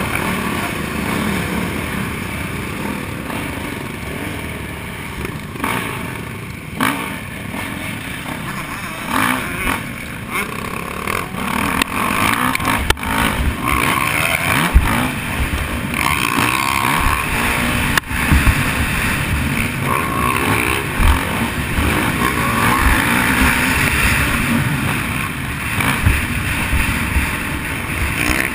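Onboard sound of a motocross bike ridden on a dirt track: the engine revving up and down as it accelerates, with wind buffeting the microphone and knocks from the bumps. Other motocross bikes run close by at the start.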